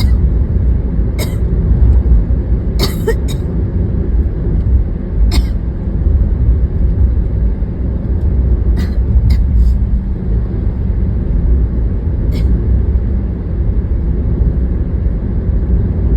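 Steady low rumble of road and engine noise inside a moving car. A few brief, sharp sounds stand out, with a cluster of them about three seconds in.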